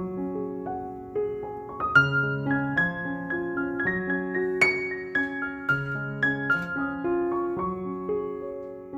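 Background piano music: a gentle melody of held notes over a lower bass line.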